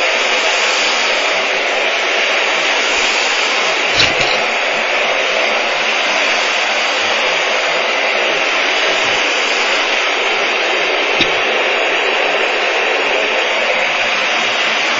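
Miele vacuum cleaner running steadily as its floor head is worked back and forth over cat litter, with two short sharp clicks, about four seconds in and again near eleven seconds.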